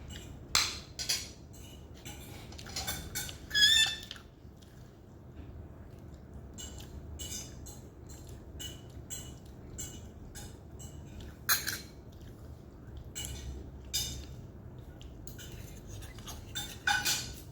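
Eating utensils clinking and scraping against plates and bowls: a scatter of short, sharp clinks, one a few seconds in ringing briefly.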